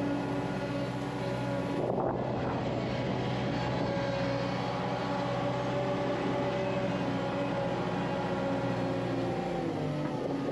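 Skid steer engine running steadily, heard from inside the cab, with a brief burst of rattling noise about two seconds in. Near the end the engine speed drops.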